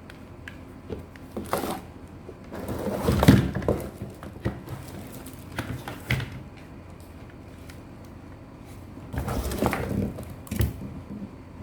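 Irregular handling noises: clattering knocks and rustles in separate bursts, loudest about three seconds in and again near ten seconds.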